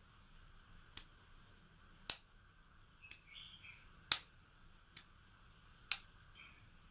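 A series of six sharp clicks, about one a second, over a faint steady hum, with a brief chirping sound in the middle.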